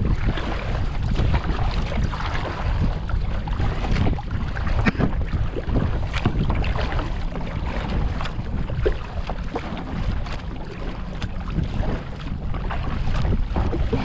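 Wind rumbling on the microphone over water sounds from a kayak, with scattered small splashes and knocks against the hull.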